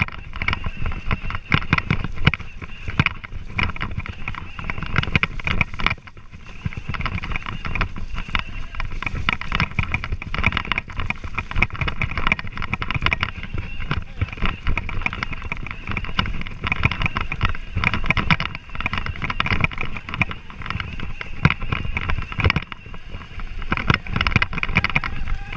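Revvi 16 Plus electric kids' balance bike riding over bumpy grass: a continuous jolting rumble and rattle, with wind buffeting the microphone.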